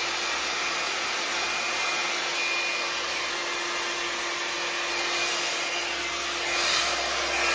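BaByliss AS962ROE rotating hot-air brush running: a steady rush of blown air with a steady hum, swelling a little near the end.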